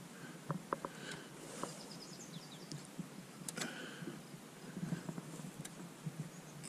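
Quiet outdoor ambience with a few faint clicks and knocks, and a brief high chirping about two seconds in.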